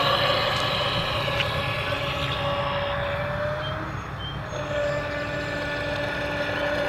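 Electric motor of a 3S brushless RC speed boat running as the boat makes drive-bys, a steady pitched whine. It grows fainter to its quietest about four seconds in, then louder again as the boat comes back.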